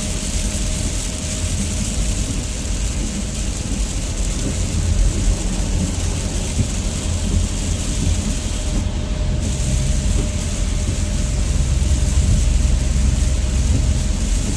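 Steady road noise inside a moving car's cabin: a low rumble from the engine and tyres with a steady hiss of tyres on wet pavement, getting a little louder over the last few seconds.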